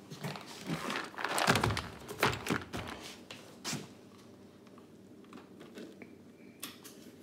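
Plastic NutriBullet blending cup being handled, turned over and set onto the motor base: a string of irregular clunks, scrapes and plastic rattles with one sharper knock, then a few faint clicks as a hand settles on the base. The motor has not started yet.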